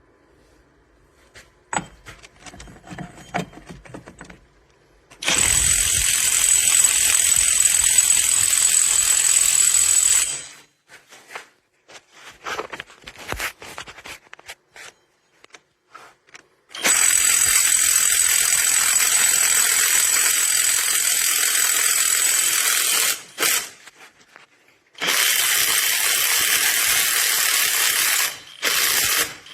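Cordless 1/2-inch impact wrench running in three long bursts, of about five, six and three seconds, each with a steady high whine. Short clicks and handling noises come between the bursts.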